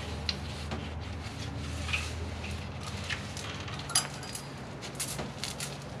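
Metal timing chain links clinking and rattling as the main timing chain of a Toyota 1GR-FE engine is pulled off its sprockets and handled. There are scattered light clinks, the loudest about four seconds in, over a steady low hum.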